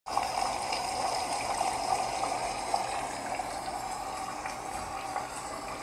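Steady rain, an even hiss of falling water that eases a little toward the end.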